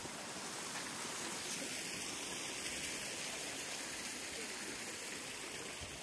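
Small hill stream rushing over rocks in little cascades, a steady even rush of water.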